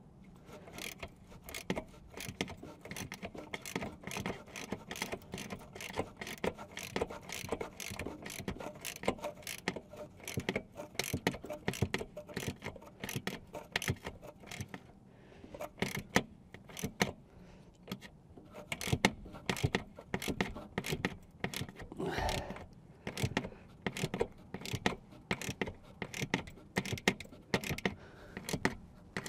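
Hand ratchet wrench clicking in bursts of rapid clicks with short pauses, tightening hardware during a diesel bunk heater install.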